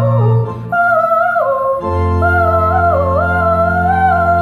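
Live rock band playing: a lead melody with bent, sliding notes over a held low keyboard chord and bass. The low chord drops out about half a second in and comes back near the two-second mark.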